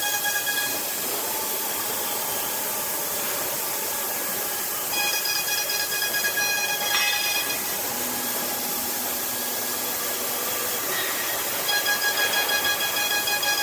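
High-speed CNC router spindle running with a high, steady whine over a constant hiss. The whine swells for a couple of seconds about five seconds in and again near the end, fading back between.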